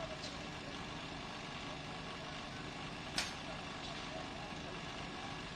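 Steady engine noise of heavy machinery, with a single sharp impact a little over three seconds in and faint distant voices.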